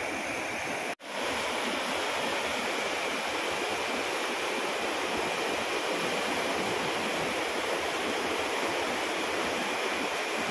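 Steady rushing of flowing creek water, an even dense hiss with a faint steady high tone above it; it cuts out for an instant about a second in.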